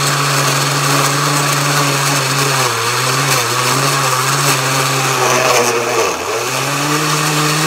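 Glass-jar countertop blender motor running with a steady hum as it chops a block of cheese. Its pitch sags twice, about three seconds in and again about six seconds in, as the motor bogs under the load of a cheese slab being pushed down into the blades.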